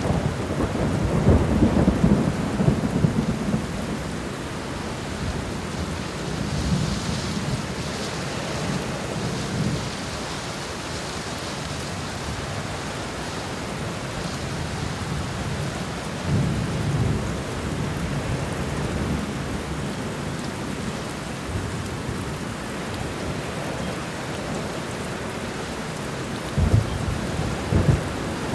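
Thunderstorm: steady rain with low rolling thunder. The thunder is loudest in the first few seconds, rumbles again about halfway through, and gives two short rumbles near the end.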